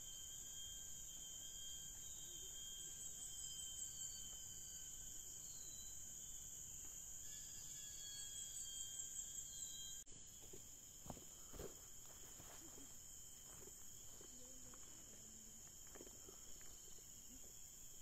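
Steady high-pitched drone of an insect chorus, with a few short bird chirps over it. About ten seconds in, the sound changes abruptly and a few brief lower calls follow.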